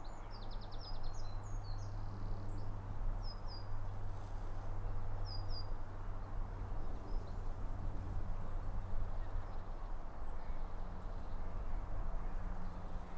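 Steady low wind rumble and waterside ambience, with small birds chirping now and then. There is a quick run of chirps about half a second in, and pairs of short high chirps a few seconds later.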